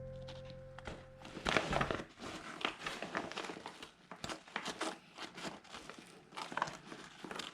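Irregular crinkling and rustling with small clicks, as of something being handled close by. Fading background music at the start.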